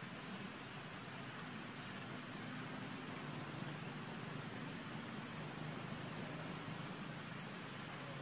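Insects droning in chorus: one unbroken high-pitched buzz, holding a single pitch, over a low hum.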